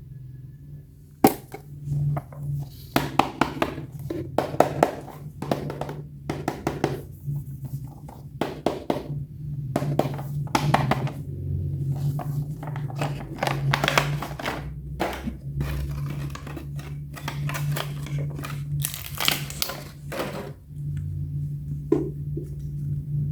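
Plastic toy packaging crinkling and rustling, with irregular clunks and knocks as a toy is handled and unboxed, over a steady low hum.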